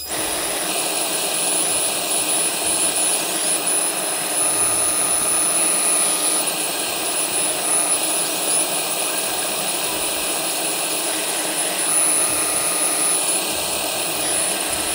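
CNC router spindle running with a steady high whine while a 60-degree V-bit engraves a shallow pass into oak, with a hiss of cutting under it.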